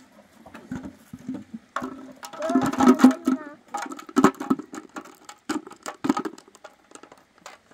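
Irregular clicks and knocks of things being handled and rattled in a metal bucket, busiest a couple of seconds in.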